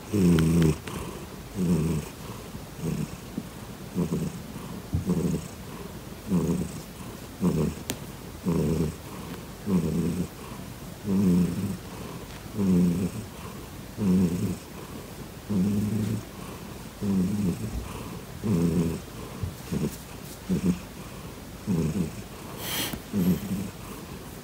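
Grey domestic cat purring loudly and deeply while being stroked, the purr swelling with each breath about once a second.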